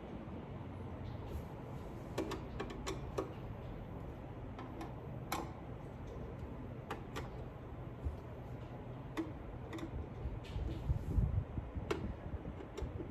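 Scattered light clicks and taps from handling the rackmount NAS's metal cover and screws while it is being closed up, over a low steady hum.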